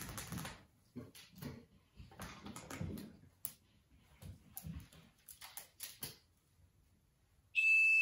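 Green-winged macaw clambering up a hanging cotton-rope perch, with rustling and scraping of feet and beak on the rope and several sharp clicks of the metal chain. Near the end comes a loud, shrill, steady beep-like tone about a second long that changes pitch once.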